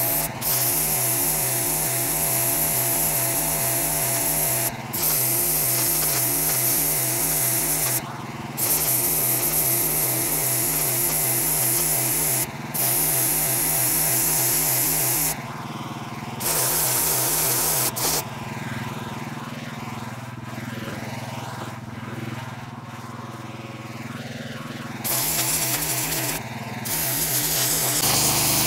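Sandblaster nozzle blasting abrasive onto a steel truck door with a loud hiss. The hiss is cut off briefly several times and runs weaker for several seconds in the second half, over an engine running with a low pulsing beat.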